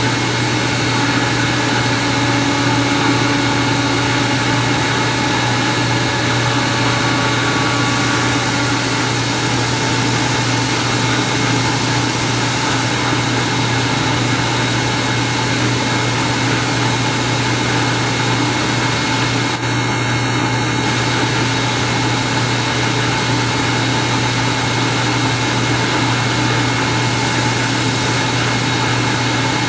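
Steady industrial machine hum: a constant low drone with a broad whir and several steady tones, unchanging throughout.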